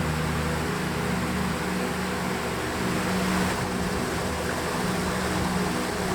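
Background music of long held chords over a steady rushing hiss.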